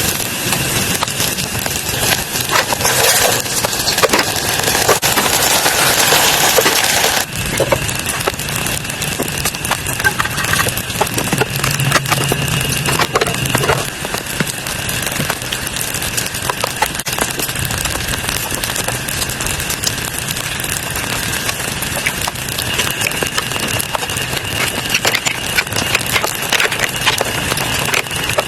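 Steady rain with many small crackling clicks throughout, and a louder hiss for a few seconds that cuts off suddenly.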